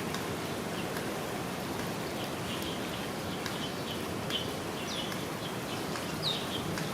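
Steady rush of flowing stream water, with several short, high bird chirps scattered through it.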